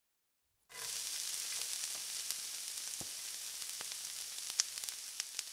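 Food frying in hot oil: a steady sizzle with scattered crackles and pops, starting about a second in.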